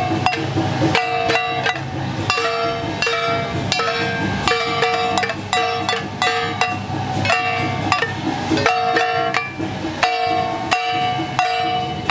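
Temple-procession percussion: ringing metal gong strikes in an uneven rhythm over drumming, accompanying a Jiajiang troupe's performance.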